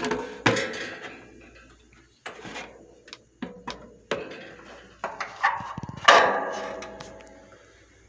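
Scattered knocks and clanks of hands and a camera handling a 1950s Wizard box fan's sheet-metal body and wire grille. Several of them ring briefly, and the loudest comes about six seconds in.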